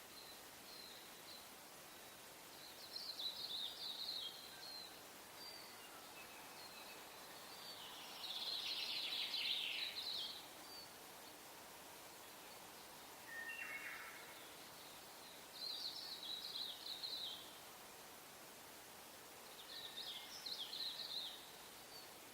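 Wild birds singing outdoors: five short, high phrases a few seconds apart, the longest about two seconds, over a steady faint hiss.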